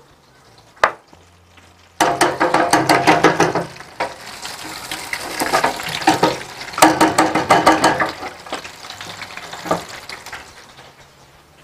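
Hot oil in a deep fryer sizzling and crackling, with two sudden loud bursts, about two seconds in and again near seven seconds. Each dies down to a softer hiss, as happens when food goes into the hot oil.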